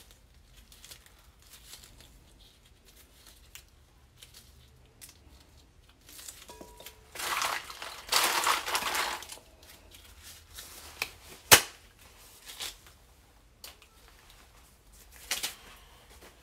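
Brittle dry tamarind pod shells being cracked and peeled off by hand, with scattered crackling and crunching. A louder stretch of crunching comes from about seven to nine and a half seconds in, and there are sharp snaps later.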